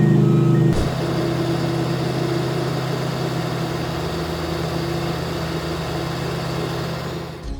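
Heavy diesel engine of asphalt paving equipment running steadily at idle. Near the start, a backup alarm beeps a couple more times before a sudden change leaves only the engine.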